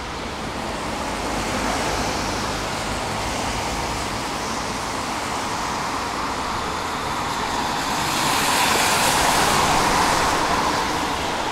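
Tram pulling away from the stop: a steady rolling rush that swells louder about eight seconds in and then eases, over the noise of street traffic.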